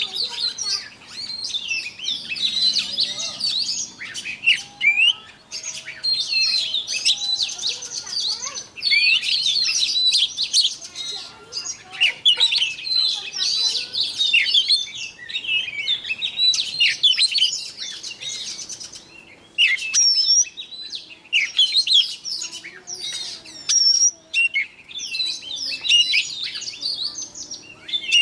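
White-rumped shama singing a long, varied song of clear whistles, fast trills and sliding notes, in phrases broken by short pauses.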